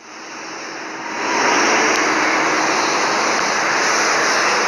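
Road traffic going past on a busy multi-lane road: a rushing noise of tyres and engines that swells over the first second or so, then holds loud and steady.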